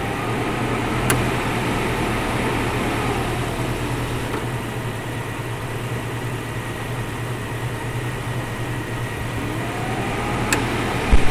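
1998 Jeep Cherokee engine idling while its Sanden A/C compressor clutch cycles: a sharp clutch click about a second in and another near the end, with a faint whine rising and falling in between. The clutch cycling is the sign of a low refrigerant charge. A low thump right at the end.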